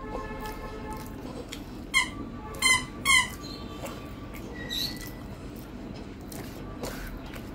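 Three short, high-pitched squeaks in quick succession about two to three seconds in, with a fainter one near the five-second mark, over soft sounds of rice being mixed by hand on a metal plate.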